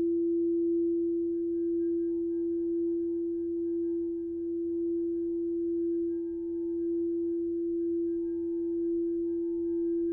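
Singing bowl ringing a single steady tone with faint higher overtones, its loudness slowly swelling and fading.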